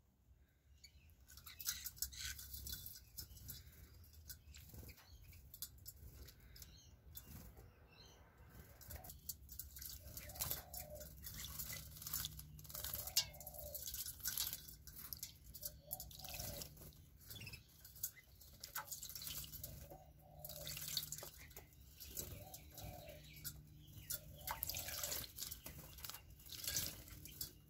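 Small aviary birds bathing in a shallow steel water bowl: irregular bouts of splashing and dripping water with wing flutters as they dip and shake.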